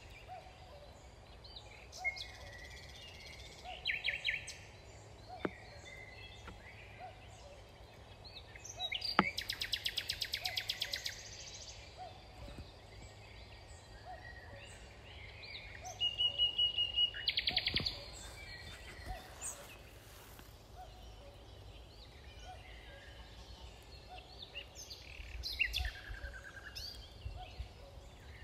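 Woodland songbirds singing, with short phrases scattered through and two long, rapid trills about nine and sixteen seconds in, over a low steady rumble.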